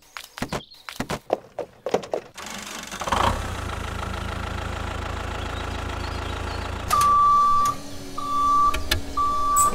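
A few quick clicks, then a dubbed tractor engine sound that starts with a burst about three seconds in and runs steadily, followed near the end by three short horn beeps on one pitch.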